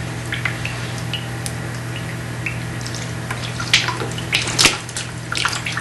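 Water overflowing from a water-filled PVC pipe, splashing and dripping into a bucket below, the water pushed out by cut potato pieces added to the pipe. The splashes are scattered, with a cluster of louder ones about four seconds in, over a steady low hum.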